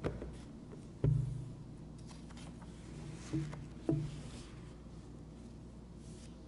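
A few soft thumps with a short low ring after each, the loudest about a second in and two more a little after three and near four seconds, with faint paper rustling between them: a sheet of paper being handled and set down on a wooden lectern, picked up by the lectern's microphone.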